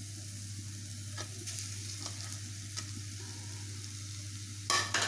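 Onions and green chillies frying in oil in a metal kadai with a steady sizzle, a few faint ticks, and a short, louder clatter of the metal slotted spoon against the pan near the end.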